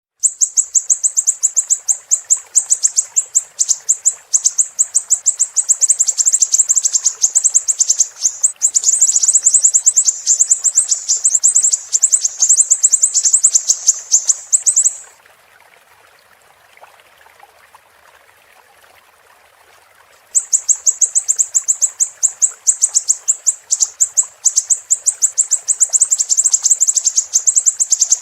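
Siri-siri bird singing a long, rapid string of very high chirps. It breaks off about halfway for several seconds, then starts again. A faint hiss of flowing water runs underneath.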